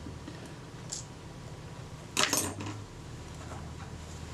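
Small metal items clinking in a short clatter about two seconds in, after a faint tick about a second in.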